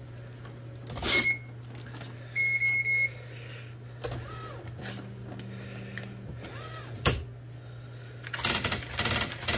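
IBM Wheelwriter 6783 electronic daisy-wheel typewriter under test after repair, humming steadily. It beeps briefly about a second in and again for longer around two and a half seconds, knocks once near seven seconds, and then from about eight and a half seconds types a rapid run of print strikes. The hammer, repaired from an intermittent fault, is now striking properly.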